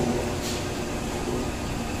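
Electric dough kneader running empty, its motor humming steadily as the kneading arm turns in the stainless-steel bowl, with a light click about half a second in.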